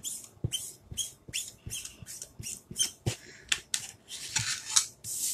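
Small plastic squeegee scraped over a silk-screen transfer to push chalk paste through the mesh: a run of short scraping strokes, about two a second, with longer strokes near the end.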